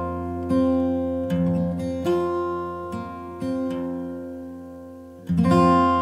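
Background music: an acoustic guitar playing slow chords, each struck and left to ring out, with a louder chord struck near the end.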